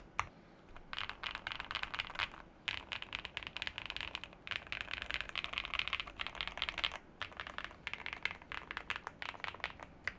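Fast typing on a QK80 mechanical keyboard with Gateron CM linear switches: rapid runs of key clacks broken by brief pauses. The typing starts about a second in.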